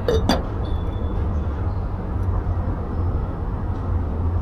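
Steady low rumble with uneven noise, with two short clicks right at the start.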